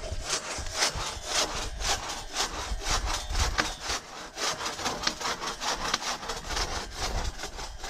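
Crosscut saw cutting through a large downed log, the blade drawn back and forth in quick, even strokes, each one a rasp through the wood.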